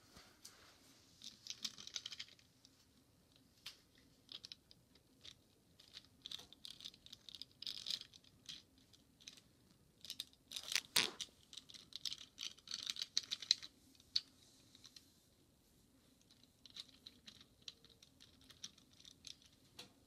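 Faint, irregular scratching and clicking as small die-cast toy cars are handled and pushed over a carpeted ledge, in scattered clusters with a louder clatter about eleven seconds in.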